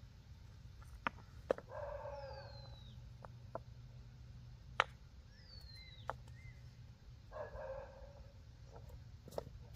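An animal call sounds twice, about 2 seconds in and again near 7.5 seconds, while a high falling whistle like a bird's call repeats about every three seconds. A few sharp knocks and a steady low hum run underneath.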